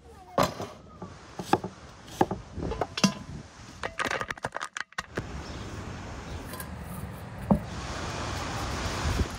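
Food pieces dropped by hand into a metal pot: a series of sharp slaps and knocks, a quick rattling cluster about four seconds in, then a steady hiss that builds near the end.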